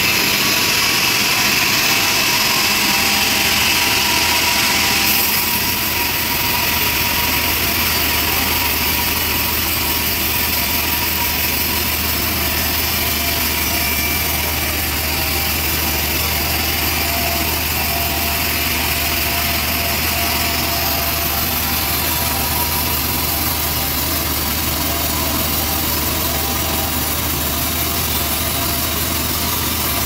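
Sawmill bandsaw running steadily as it cuts lengthwise through a trembesi (rain tree) log, a continuous loud machine noise with a shift in tone about five seconds in.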